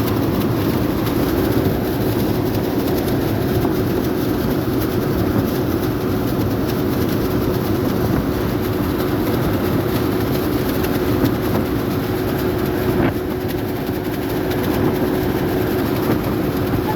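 A steady engine drone with a constant hum under a rushing noise, holding even throughout, with a single click about thirteen seconds in.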